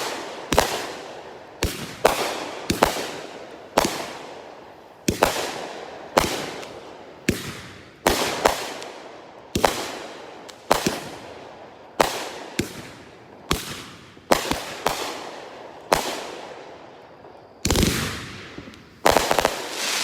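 Brothers "Wind Up" multi-shot consumer fireworks cake firing shot after shot: sharp bangs about once a second, each trailing off, with a quicker volley of bursts near the end.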